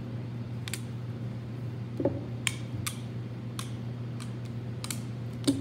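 PVC pipe rolling pin worked back and forth over a clay slab on canvas: irregular light clicks and knocks, with two louder knocks about two seconds in and near the end, over a steady low hum.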